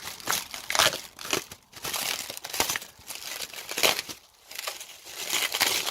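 Packing material crinkling and tearing in irregular bursts as a boxed car part is unwrapped by hand.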